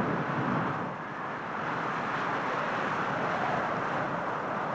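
Wind blowing, a rushing noise that rises and falls in gusts and dips briefly about a second in.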